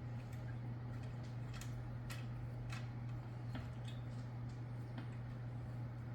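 Light, irregular clicks and taps of metal hardware being handled as a bolt and washer are fitted and tightened on a lawn mower under assembly, over a steady low hum.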